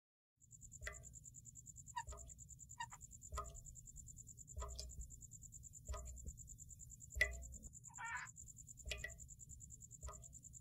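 Faint night-chorus-like sound: a steady high-pitched insect trill with short croak-like calls about once a second over a low rumble, starting about half a second in.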